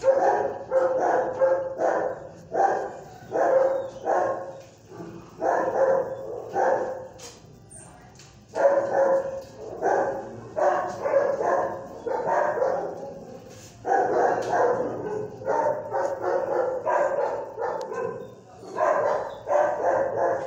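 Dog barking over and over in runs of several barks, with short pauses between the runs.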